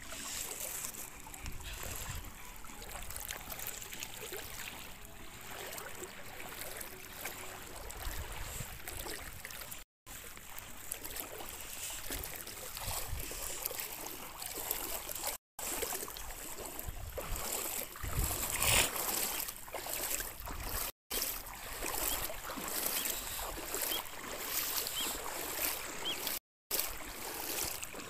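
Shallow river water sloshing and splashing around legs as people wade through it, broken by a few brief silent gaps.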